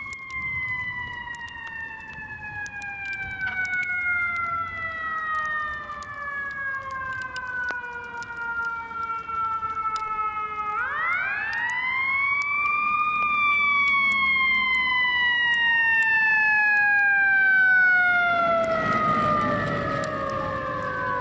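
Fire truck siren, its pitch sliding slowly down, winding quickly back up about eleven seconds in, then sliding slowly down again. A rushing noise joins it near the end.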